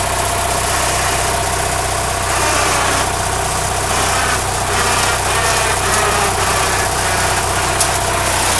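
Engine of a small homemade utility yard truck idling steadily.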